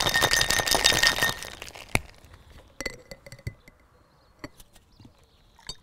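Ice rattling fast inside a cocktail shaker as it is shaken hard, stopping about a second and a half in. Then one sharp knock, followed by a few scattered clinks of ice and glass as the shaker is opened and handled.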